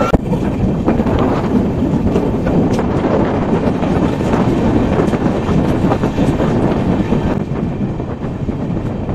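Rail noise at an open coach door: steady rumble of wheels on rail with faint scattered clicks as a passenger train passes close on the adjacent track, with wind buffeting the microphone.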